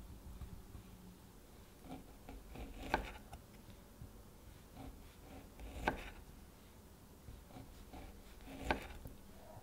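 A knife slicing through a pepperoni salami on a wooden cutting board. The blade knocks on the board three times, about three seconds apart, as each slice is cut through, with light scraping of the blade through the sausage in between.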